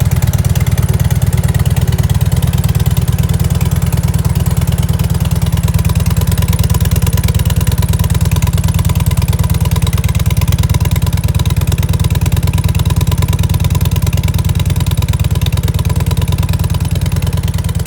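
1998 Harley-Davidson FLSTC's air-cooled Evolution V-twin running steadily at idle through its stock mufflers, easing off slightly near the end. The run is a check for a light ticking and squeaking noise ('chi-chi-chi, kiri-kiri') that the owner hears from about 1000 rpm but not at a 500 rpm idle.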